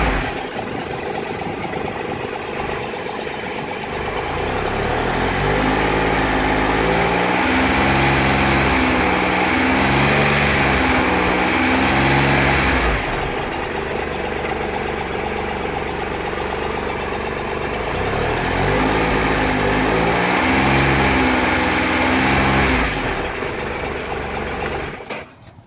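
Triumph Tiger Explorer's three-cylinder engine idling and revved up and down in two spells, the pitch rising and falling several times in each spell. The engine cuts off near the end. It is being run up through the mid revs around 2800 rpm, where a buzz from the fairing had shown up.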